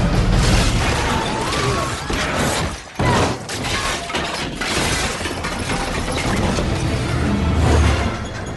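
Film sound effects of a train crash, with crashing and shattering debris mixed over a music score. A sudden loud hit comes about three seconds in, after a brief drop.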